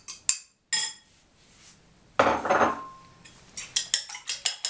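A few sharp clicks of eggshell at a ceramic bowl as eggs are cracked and separated, and a brief clatter about two seconds in. From about three and a half seconds a fork starts beating eggs in the bowl, clinking against the bowl about five times a second.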